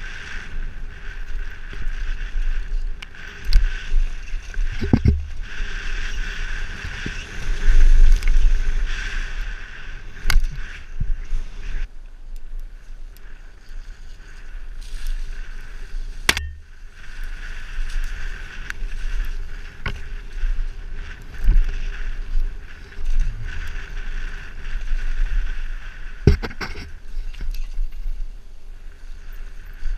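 Wind rushing over a helmet-mounted action camera as a mountain bike descends dirt forest singletrack, with steady tyre and trail noise. Sharp knocks and rattles from the bike and camera mount over bumps break through several times.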